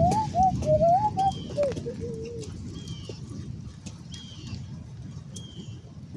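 Water rushing into a storm drain with a low, steady noise that slowly fades. Over it a wavering whistle-like tone glides up and down for the first two seconds, and a bird's short, high, falling chirp repeats about every second and a half.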